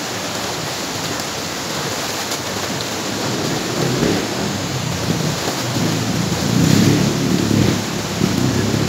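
Shallow stream rushing steadily over rocks, with low, irregular sloshing from about four seconds in as a woven plastic sack is dunked and swished in the water.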